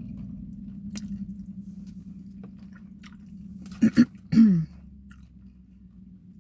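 A person chewing a mouthful of food with the mouth closed, with soft wet mouth sounds. About four seconds in comes a short hummed 'mm-hmm', then a longer 'mmm' that falls in pitch.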